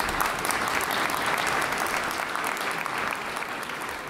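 Audience applauding: dense, steady clapping that slowly starts to fade near the end.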